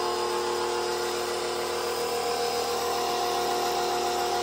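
Sun Joe SPX3000 electric pressure washer running under load. Its motor and pump give a steady whine over the hiss of the water spray from the wand.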